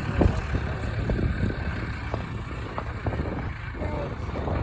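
Tractor engine running steadily, with scattered short knocks over it.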